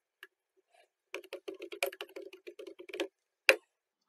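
Typing on a computer keyboard: a quick run of keystrokes lasting about two seconds, followed by one sharper click.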